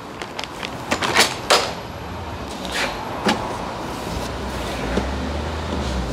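Clicks and knocks from a plastic coolant jug and tools being handled, a few sharp taps in the first couple of seconds and a couple more later. A low steady hum comes in about four seconds in.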